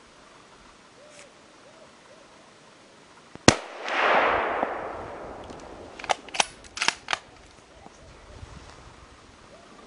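A close gunshot from a hunting gun about three and a half seconds in, its report rolling away over about two seconds, followed by four fainter, sharp shots in quick succession.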